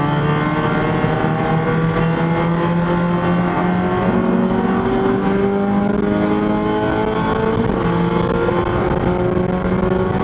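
Spec Miata race car's four-cylinder engine heard from inside the stripped, caged cockpit, running hard under acceleration with its note slowly climbing in pitch, over steady road and tyre noise.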